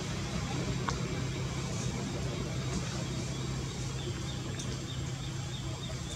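A steady low hum, with a quick run of faint high chirps a little past the middle.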